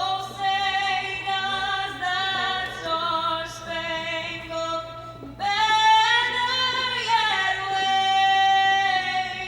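Women singing, with long notes held with vibrato and gliding changes of pitch; a louder, higher held phrase begins about five and a half seconds in.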